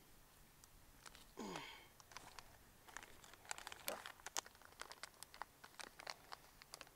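Faint crinkling and scattered light clicks of plastic being handled while planting, thickest in the second half. About a second and a half in comes one short cry that falls steeply in pitch.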